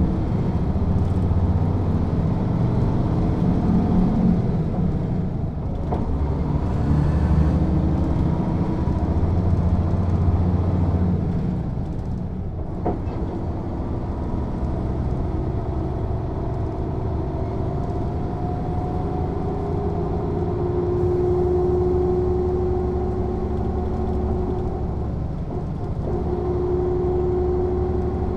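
Mercedes-Benz O 407 city bus's six-cylinder diesel under way, running hard under load for the first dozen seconds with a couple of dips in the pull. It then settles to steadier running while a whine grows in and holds.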